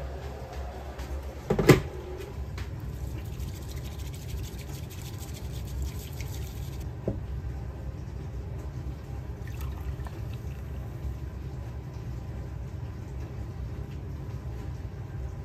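Liquid being poured into a ceramic bowl, with a single sharp knock about two seconds in, over a steady low rumble.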